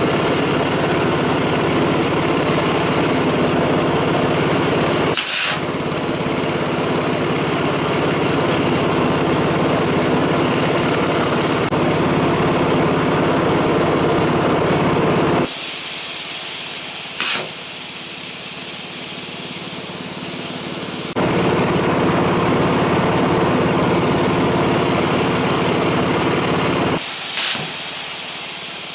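A motor runs steadily and loudly throughout, with a rapid mechanical pulse. Three sharp pops about 5, 17 and 27 seconds in are the PVC air cannon firing.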